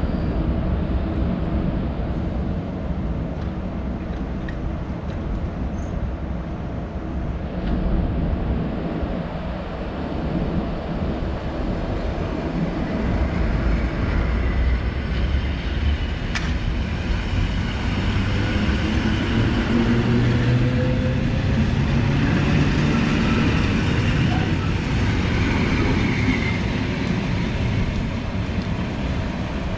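EN57 electric multiple unit pulling away: a steady low hum while it stands, then from a little past halfway its traction motors whine, several tones rising together in pitch as it gathers speed.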